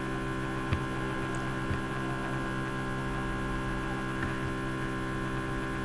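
Steady electrical mains hum with many evenly spaced overtones, and a few faint clicks.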